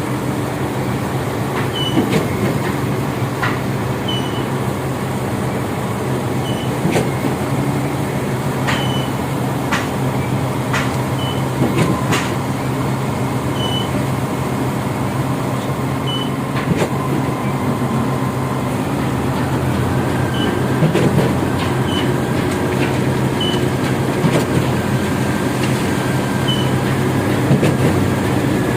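Heavy diesel machinery of a concrete pour, the concrete pump and mixer truck, running steadily with a low engine drone. Sharp knocks and clanks come every second or few.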